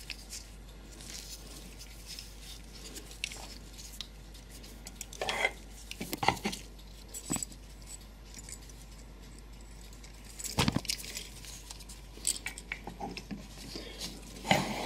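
Brass parts of a clock movement clicking and clinking as they are handled and lifted out during disassembly: scattered light clicks, with a sharper knock about ten and a half seconds in.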